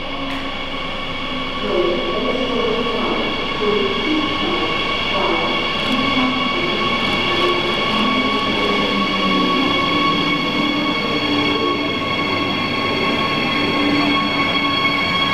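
DB class 147 electric locomotive and double-deck coaches pulling slowly into an underground station platform, echoing. A steady high-pitched whine runs throughout, under lower tones that shift in pitch as the train slows; it gets louder about two seconds in as the train draws near.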